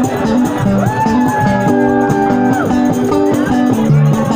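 Acoustic guitar playing chords. A long high held note slides up about a second in, holds for nearly two seconds, then falls away.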